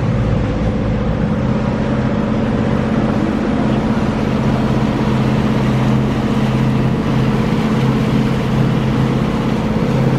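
Motorboat's outboard engine running steadily under way, a constant hum over the rush of water and wind.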